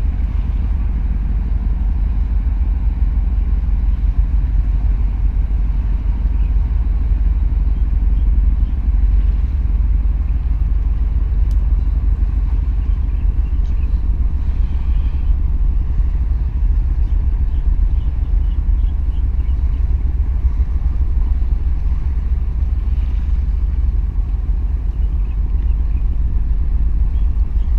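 Steady low rumble as a large container ship passes close by, mixed with wind buffeting the microphone.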